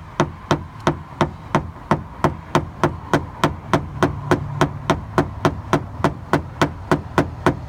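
Paintless dent repair tap-down tool struck on a truck door's sheet metal: an even run of sharp taps, about three a second, knocking down high spots around the repaired dent. A steady low hum sits underneath.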